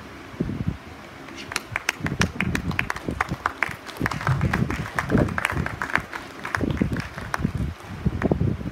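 Audience applauding with scattered hand claps, starting about a second and a half in, over people talking.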